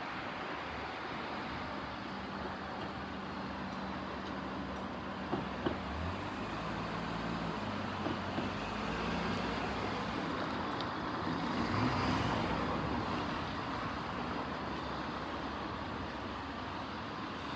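Road traffic: motor vehicle engines running, with a low hum that shifts in pitch a few times and a vehicle passing close about twelve seconds in. A few light knocks sound around five to six seconds in.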